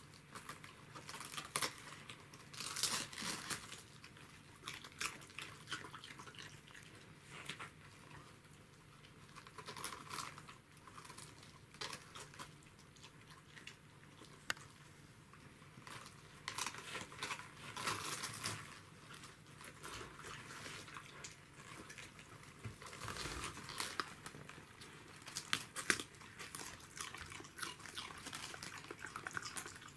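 A Pembroke Welsh corgi biting into a whole head of raw cabbage, tearing leaves off and chewing them: irregular crunching and crinkling of the leaves.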